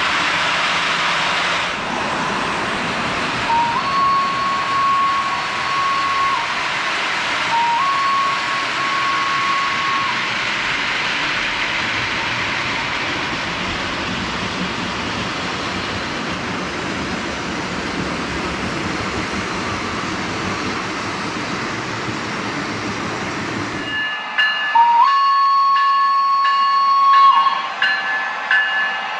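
An O-scale three-rail model train running on the track, with a steady rumble of wheels and motor. Twice a model locomotive's electronic horn sounds, each a short lower note stepping up to a held higher tone lasting about two and a half seconds. Near the end the rumble drops away to quieter running with steady high tones, and the horn sounds once more.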